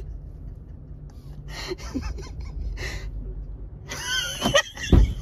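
Steady low rumble of the car idling, heard from inside the cabin. From about four seconds in, clunks and rustling come from the door as someone outside tries it, and they end in a loud thump near the end: the door is not opening.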